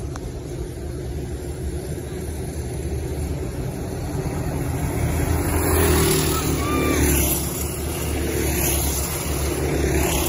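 Small single-cylinder Predator kart engines buzzing as a pack of go-karts laps a dirt oval. The sound swells to its loudest about six to seven seconds in as karts pass close.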